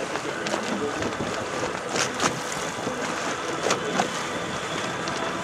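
Wind buffeting the microphone over water splashing and slapping against a boat's hull in choppy water. A few sharp knocks come about halfway through.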